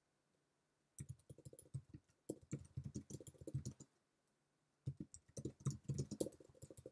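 Typing on a computer keyboard: two runs of quick keystrokes with a pause of about a second between them.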